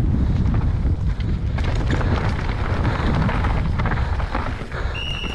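Mountain bike descending a rough enduro trail at speed: wind blasting the camera microphone, tyres rumbling over dirt and the bike rattling over rocks. A brief high squeal sounds near the end.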